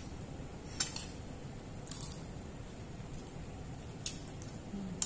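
Crab shell being picked apart by hand over a plate, with four short, sharp clicks of shell cracking and clinking on the plate, spaced a second or two apart.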